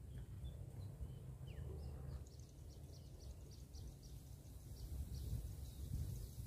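Quiet outdoor ambience: a low, uneven rumble with faint, short chirps of small birds over it.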